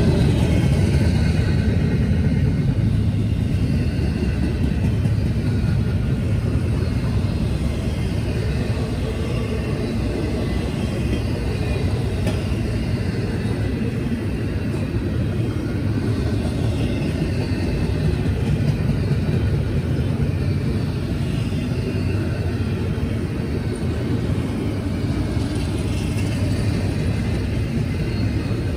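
Double-stack intermodal freight train rolling past at close range: a steady rumble of the well cars on the rails.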